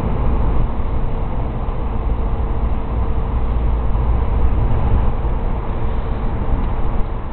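Steady, loud outdoor background noise: a low, uneven rumble with no distinct events.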